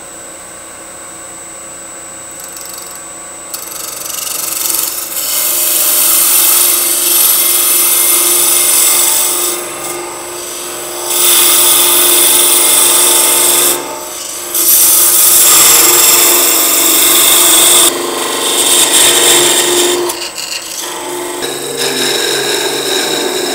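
Narrow Ashley Iles parting tool, ground with a secondary bevel as a negative rake scraper, cutting into a spinning wooden box blank on a lathe to part the lid from the base. The lathe runs alone for the first few seconds, then the cut comes in loud, in about five passes with brief pauses between them.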